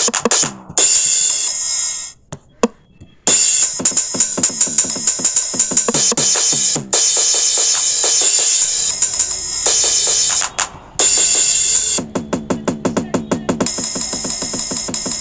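Background music with a drum-kit beat and cymbals, cutting out briefly twice, with a quick run of drum hits near the end.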